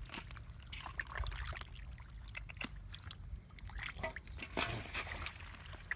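Wet mud squelching and slopping as gloved hands dig through it, with scattered short splats and clicks.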